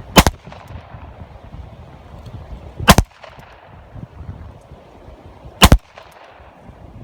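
Three shots from a stainless .357 revolver with a ported 6-inch barrel, fired about two and a half to three seconds apart. Each is a sharp report with a brief echo.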